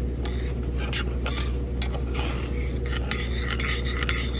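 Spoon stirring and scraping dry semolina around a metal pot as it is dry-roasted toward golden brown, a gritty rasp stroke after stroke, over a steady low hum.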